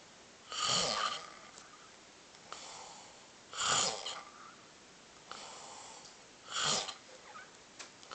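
A person snoring: three loud snores about three seconds apart, with softer breathing between them.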